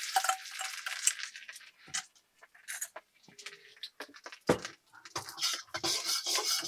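Minced ginger and garlic sizzling in hot oil in a steel wok, with a few light metal clinks. From about five seconds in, a steel ladle scrapes and stirs in the wok.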